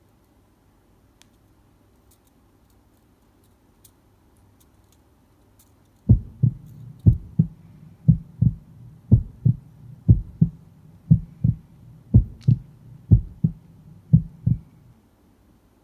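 Low, paired thumps in a heartbeat-like rhythm, two beats about once a second over a faint hum, starting about six seconds in after near silence and stopping shortly before the end.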